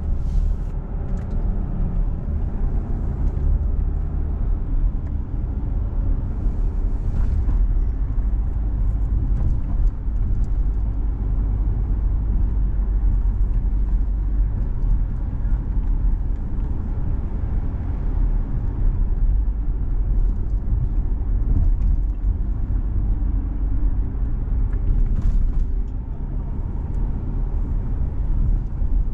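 A car driving: a steady low rumble of engine and road noise, with a few brief higher noises along the way.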